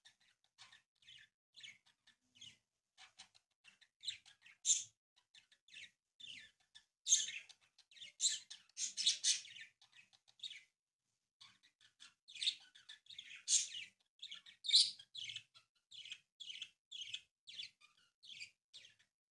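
Small birds chirping in the background: a run of short, high chirps repeated every half second or so, thickening into busier clusters in places.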